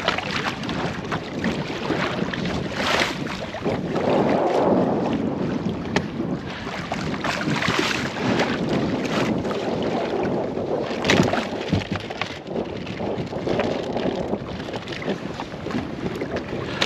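Wind buffeting the microphone aboard a small boat, with water washing against the hull and irregular brief louder bursts.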